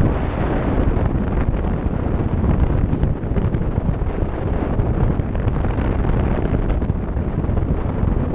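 Steady wind rush buffeting the microphone on a motorcycle riding at highway speed, with the bike's engine and tyre noise blended underneath.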